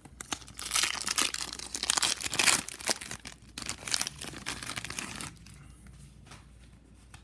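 Trading card pack wrapper being torn open and crinkled by hand, a dense crackling rustle that stops about five seconds in.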